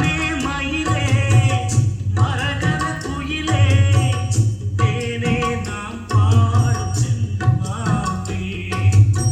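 Indian-style music with tabla-like hand-drum strokes and a wavering melody over a heavy bass line that swells in and out every couple of seconds.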